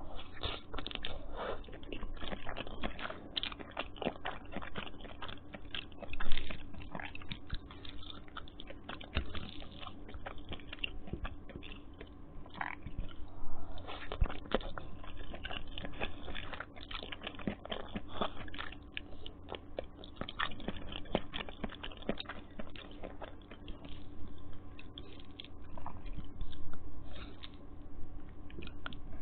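Close-miked chewing and biting of Maggi instant noodles: a dense, irregular run of small mouth clicks and smacks, with a few louder bites about six and thirteen seconds in.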